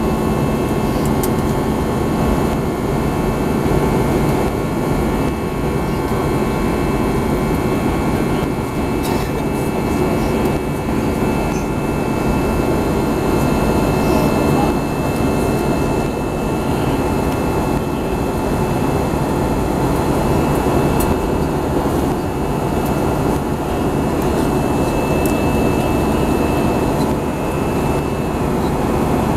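Steady in-flight cabin noise beside the wing of an Airbus A320-214: the even rush of airflow and the hum of its CFM56 jet engines, with a few faint steady whining tones over it.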